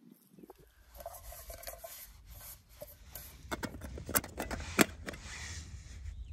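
Small metal camping pot being handled, with scraping and then a quick run of sharp metallic clicks as its lid and folding handle are worked. A low wind rumble sits underneath.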